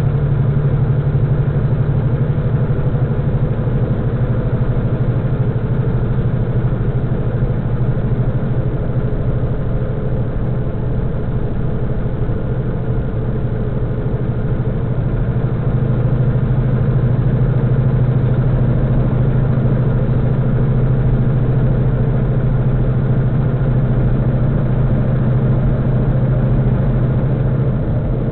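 Semi truck's engine running steadily at highway speed, heard from inside the cab as a constant low drone with road noise.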